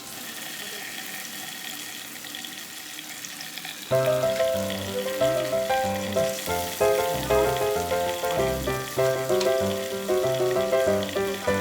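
Pork belly sizzling on a samgyupsal grill, a steady hiss heard alone for about four seconds. Then background music comes in over it.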